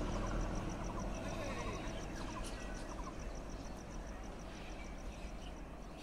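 Outdoor morning ambience: birds chirping in short calls over a steady low rumble, with a fast, even high-pitched ticking at about five a second.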